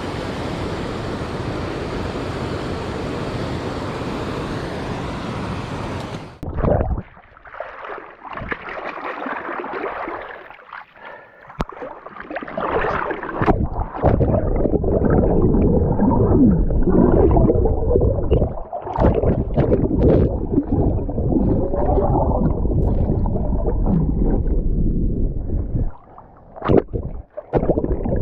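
Steady rush of flowing river water that stops abruptly about six seconds in, followed by close water sloshing and gurgling with scattered knocks, as of someone wading through the river.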